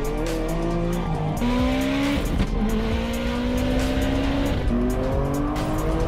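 Toyota Chaser Tourer V's turbocharged 1JZ inline-six under throttle. Its note climbs and then drops several times.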